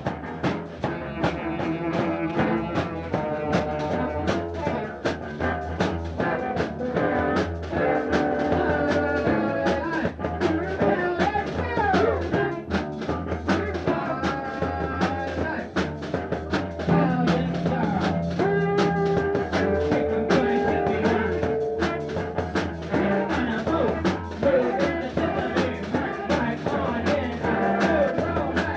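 No-wave rock song played by a band: a drum kit keeps a steady beat under held, shifting melody notes.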